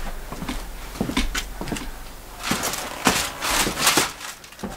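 Rustling and scraping of a fibrous insulation batt being pushed up between wooden roof rafters, in a few rough bursts about half a second long, with some light knocks before them.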